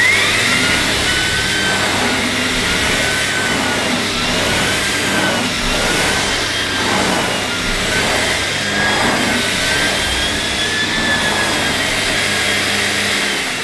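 Sebo Airbelt E1 Pet 1200-watt cylinder vacuum cleaner running with its full-size turbo brush pushed back and forth over carpet: a steady motor whine over a low hum, its pitch rising and dipping slightly, not too noisy. It switches off near the end and the whine starts to wind down.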